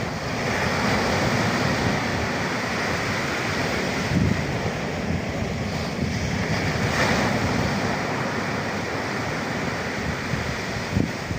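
Sea waves breaking and surging, with strong wind buffeting the microphone. The wash of the surf swells about a second in and again about seven seconds in.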